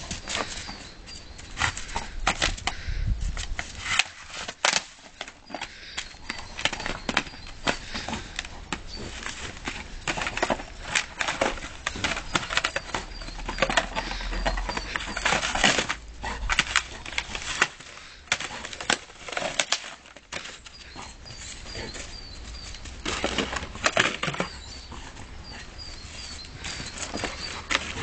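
Dog attacking a plastic plant pot on snowy ground: a busy run of irregular knocks, scrapes and crunches as the pot is shoved and tipped over and the dog's paws work the snow.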